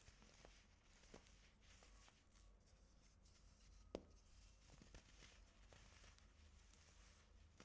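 Baking soda being crunched and crumbled: a faint crackly, crumbly hiss with scattered sharp snaps, the sharpest about four seconds in.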